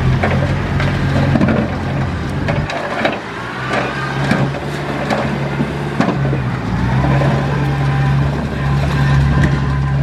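Heavy diesel earthmoving machine running steadily under load, with scattered knocks and crunches of rock and stone.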